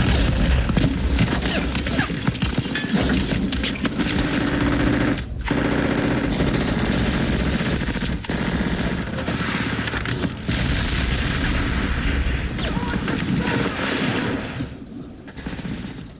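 Action-movie soundtrack gunfight: rapid, sustained automatic gunfire over a deep bass rumble, thinning out and fading away near the end.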